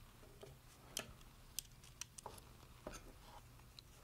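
Faint, scattered metallic clicks and ticks, a handful in all, from a hex key and small socket head screws against the aluminium and plastic parts of a servo gear-rack frame as the screws are driven in.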